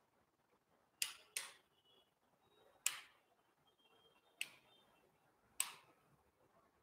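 Five sharp clicks at irregular intervals, each with a short ringing tail, over a quiet room.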